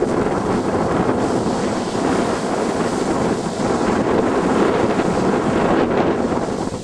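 Strong wind buffeting the microphone: a loud, steady rush of noise with no breaks.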